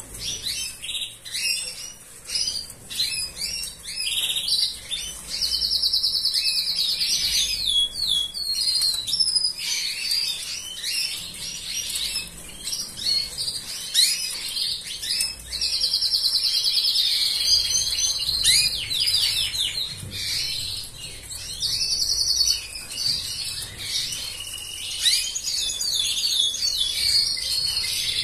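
Arlequim Portuguese (Portuguese Harlequin) canary singing: quick high chirps and sweeping notes, broken several times by long, fast trills of one to two seconds.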